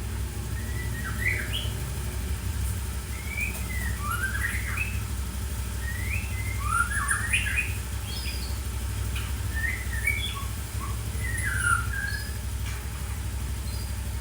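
A murai hutan, a white-rumped shama, singing short whistled phrases that swoop up and down, about one a second, over a steady low hum.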